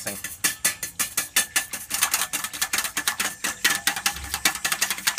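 Wire whisk beating water in a stainless steel bowl: a rapid run of metallic clicks, several a second, as the wires strike the bowl's sides.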